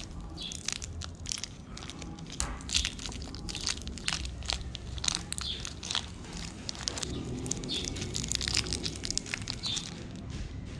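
Someone chewing a bite of Hershey's milk chocolate: a steady run of wet clicks and smacks from the mouth.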